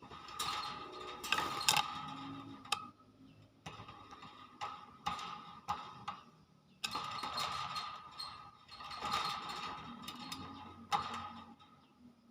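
Hill myna giving harsh, rasping calls in several separate bursts, with sharp clicks between them.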